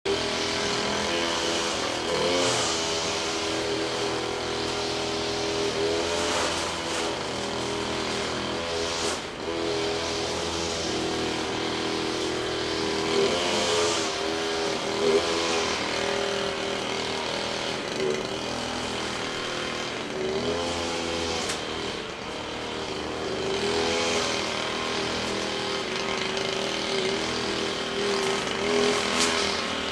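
Petrol brush cutter running steadily, its engine revving up and dropping back several times.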